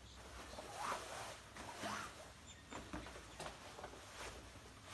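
Karate belt and gi rustling and swishing as the belt is untied and pulled off the waist: a string of faint fabric swishes and rubs.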